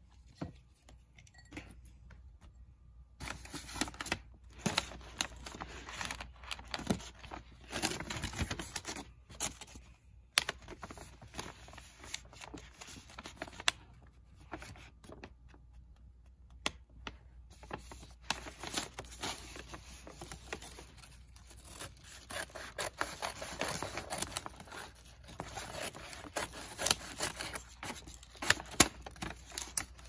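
Paper bag being handled and crinkled: irregular bursts of rustling and crackling with a few sharp clicks. It starts about three seconds in and has a short lull in the middle.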